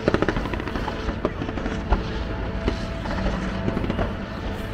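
Aerial fireworks exploding: a quick flurry of crackling bangs at the start, then a single sharp bang about two seconds in, with scattered smaller pops.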